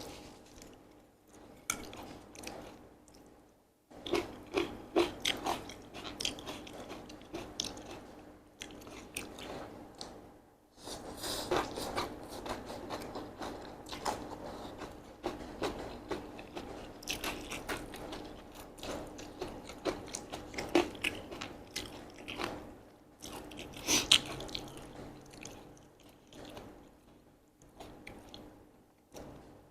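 Close-miked chewing and biting of Korean sweet potato glass noodles mixed with vegetables: continual wet mouth smacks and light crunches, broken by two short pauses.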